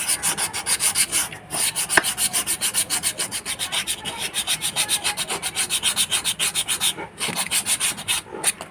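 Sandpaper rubbed back and forth over a scooter's drum-brake shoe lining in quick even strokes, about four a second, pausing briefly twice. The lining is being roughened so the brake grips properly.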